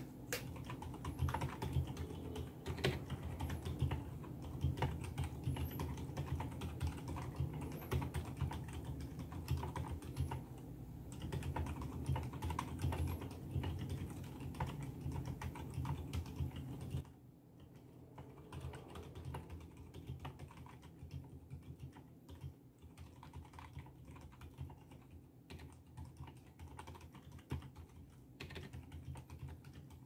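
Continuous fast typing on a Tecware Phantom TKL mechanical keyboard fitted with Outemu Silent Grey silent tactile switches, foam-dampened case and lubed stabilizers: a dense run of soft, muffled key strikes. The level drops sharply a little over halfway through and stays quieter.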